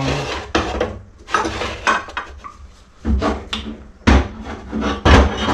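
Metal jig molds being handled on a workbench: a run of scrapes, rattles and clicks, then three heavier knocks about a second apart in the second half.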